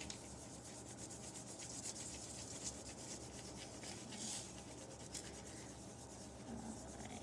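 Wax crayon rubbing quickly back and forth on paper to fill in a colored area: a faint, steady scratching of rapid strokes.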